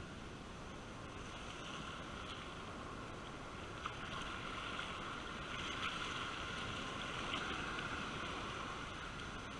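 Surf breaking and washing up a sandy beach: a steady rushing hiss that swells about halfway through as foamy water runs in close across the sand.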